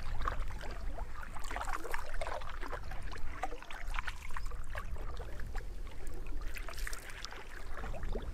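Canoe paddling: water splashing and dripping off the paddle blades and lapping at the hull in small irregular splashes, over a steady low rumble.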